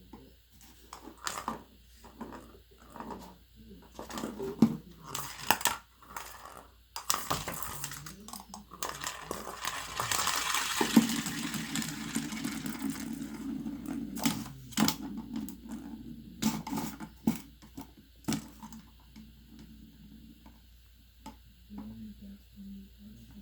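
Ball rolling and rattling around a plastic cat toy track, with scattered clicks and knocks as the kitten bats at it. There is a longer stretch of continuous rolling from about a third of the way in to past the middle.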